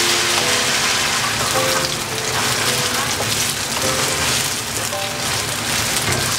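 Food sizzling and crackling in hot oil in a pan, a steady frying hiss, with soft background music notes over the first half.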